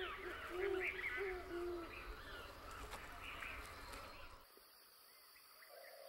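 Faint background bed of short, low hooting notes and higher chirping calls, which cuts to a quieter bed about four and a half seconds in, with a few short repeated notes near the end.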